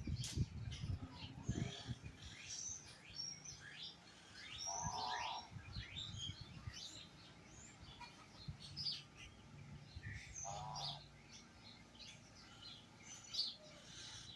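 Birds chirping and twittering in short high calls throughout, with two brief buzzy calls about five and ten and a half seconds in.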